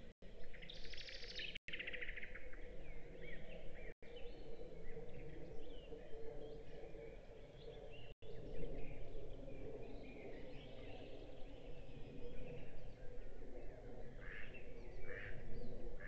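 Small songbirds chirping and trilling, with a louder trill about a second in and a cluster of short chirps near the end, over a steady low background rumble. The audio cuts out for an instant several times.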